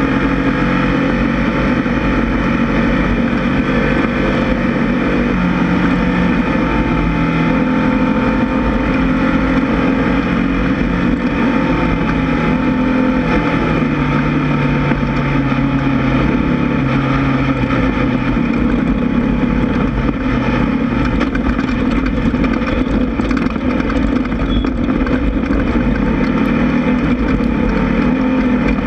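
Class 1600 race buggy's air-cooled Volkswagen 1600 flat-four engine running hard and loud, its pitch rising and falling with throttle and gear changes.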